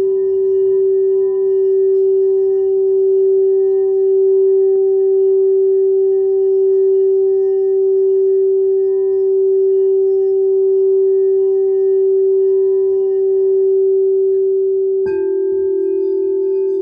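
Crystal singing bowl sustaining one steady, pure ringing tone with fainter higher overtones. About 15 seconds in, another bowl is struck and a second, slightly lower note joins it, the two wavering slightly against each other.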